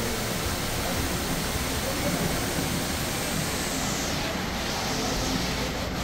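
Steady rush of an indoor waterfall pouring into a large aquarium, with a murmur of voices beneath. The brightest part of the hiss dulls about four seconds in.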